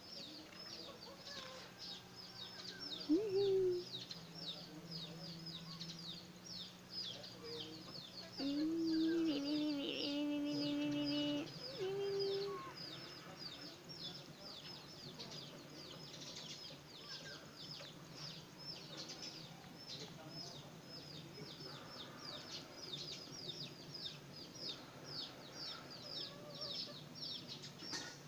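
A rooster crows once, about eight and a half seconds in, holding a long pitched note for about three seconds; it is the loudest sound. A couple of short fowl calls come before and after it, over steady rapid high-pitched chirping repeated several times a second.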